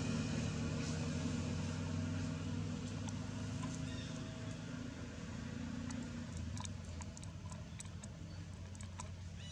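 A low engine hum that fades gradually over several seconds. Light scattered clicks come in over the second half.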